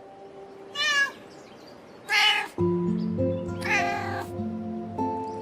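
A cat meowing three times, each meow short and about a second and a half apart, over background music that comes in fuller about halfway through.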